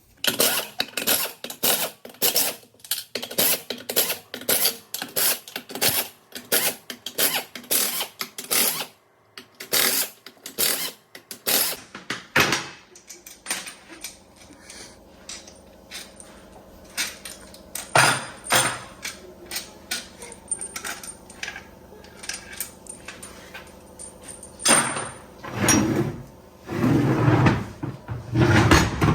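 Renault Sandero manual gearbox working with metallic clanks about two a second for the first dozen seconds, then a steady growling hum with scattered knocks and two louder rough bursts near the end. The growl is one the mechanic ties to a failing bearing.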